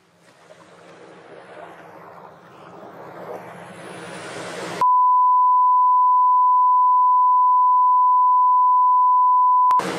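A noisy rumble fades up over the first few seconds, then gives way abruptly to a steady 1 kHz line-up test tone, the tone of a bars-and-tone leader. The tone holds for about five seconds and ends suddenly with a click.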